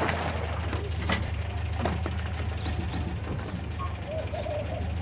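Paykan sedan's engine idling with a steady low hum, and a few sharp clicks as a car door is unlatched and opened.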